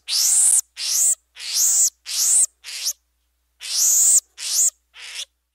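Marmoset giving a rapid series of about eight short, high-pitched calls, each rising then falling in pitch, with a brief pause about halfway through.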